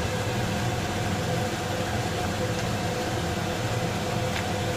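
Steady mechanical hum over a constant rushing noise in a kitchen, with a few faint clicks of a ladle against a steel cooking pot.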